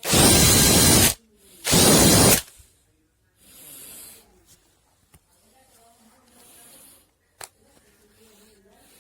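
Makita DHP458Z 18 V cordless hammer drill run in two short bursts, about a second and then under a second, followed by faint handling noises and a single sharp click.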